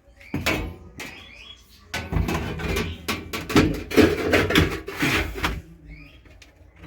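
A panel cut from an old washing machine being pushed and knocked into place in the bottom of a freezer: a single clack about half a second in, then a busy stretch of scraping and rattling knocks from about two seconds in until just past five.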